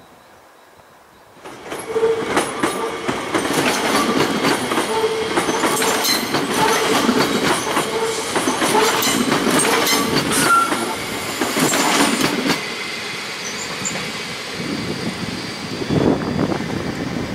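SNCB AM08 Desiro electric multiple unit passing close on a curve: wheels clattering over rail joints and points, with short squeals from the wheels. The noise starts suddenly about a second and a half in and eases after about twelve seconds as the train pulls away.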